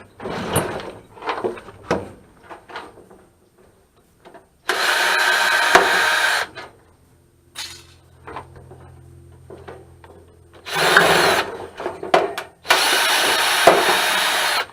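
Power drill running in three bursts, the longest about two seconds, between short knocks and clicks of parts being handled.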